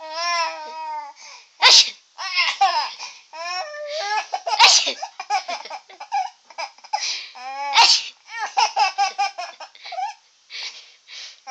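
A baby laughing and babbling at fake sneezes. Three sharp, loud sneezes come about three seconds apart, and each sets off more laughter.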